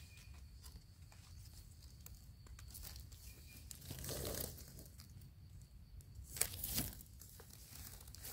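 Faint rustling and crinkling of dry leaf litter as mushrooms are handled and picked from the forest floor, with short louder rustles about four seconds in and again after six seconds.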